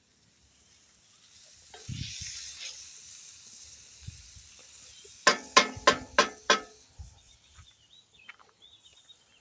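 Ground hamburger sizzling as it fries in a pan on a camp stove, the hiss swelling and then easing. About five seconds in, five quick ringing metal knocks, a utensil tapping against the pan, are the loudest sounds.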